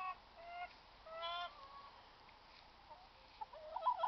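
Hens calling: a few short, drawn-out calls in the first second and a half, then a louder cluster of clucking calls near the end.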